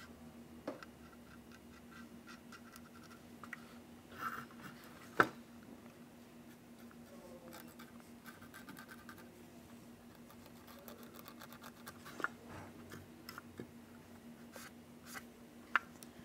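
Faint, light scratching of a micro brush drawing chalk rust streaks down the side of a plastic model freight car, with a few sharp clicks, the loudest about five seconds in, over a steady low hum.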